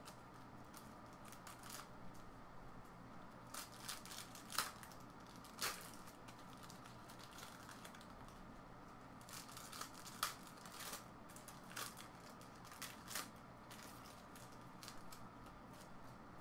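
Trading card pack wrappers crinkling and tearing as packs are opened and handled, heard as scattered faint, short crackles.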